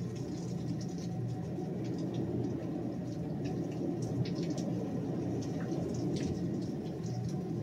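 Heavy rain coming down in sheets: a steady rush of falling water, with scattered sharp ticks of individual drops and splashes.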